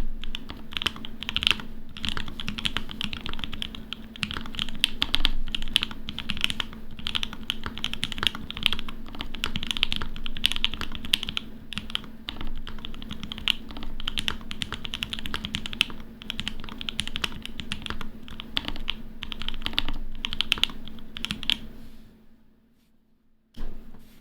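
Fast, continuous typing on a CannonKeys Obliterated75 mechanical keyboard with lubed and filmed Mauve switches and GMK Analog Dreams keycaps. The key strokes run densely, then stop about two seconds before the end, with a single louder key clack just before the end.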